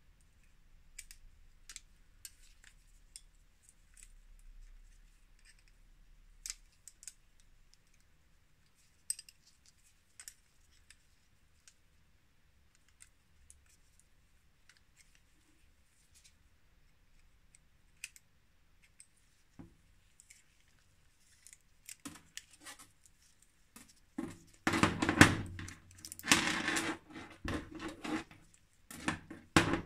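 Light metallic clicks and clinks of combination wrenches working the nuts and arms of a Mafac Racer centre-pull bicycle brake as it is taken apart, sparse at first, then a busier, louder run of metal clatter near the end.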